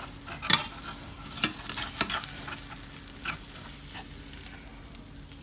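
Egg omelet sizzling in a frying pan, with a spatula scraping and knocking against the pan several times in the first three and a half seconds as the omelet is loosened from the pan.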